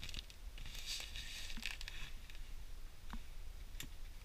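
Cloth and fabric rustling and rubbing as a chamois-like pad is worked in against a fabric cover on a wooden dinghy's gunwale, with a few small sharp clicks, over a low steady rumble.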